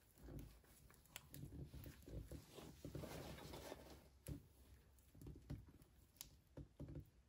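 Faint handling noise of gloved hands fitting a sleeved wire into a plastic trolling motor plug: soft rustling and scraping, with a few small clicks, about a second in, past four seconds and past six seconds.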